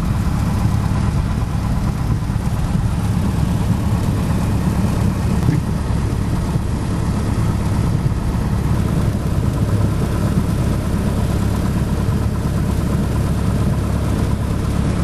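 Single-engine light aircraft's piston engine running steadily at low power, heard from inside the cabin as the plane taxis.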